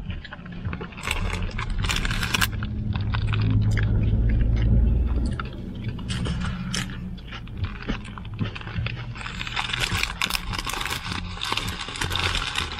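A person chewing and biting into a double-patty cheeseburger, with its paper wrapper crinkling in short crackles that get busier near the end. A low rumble swells and fades in the middle.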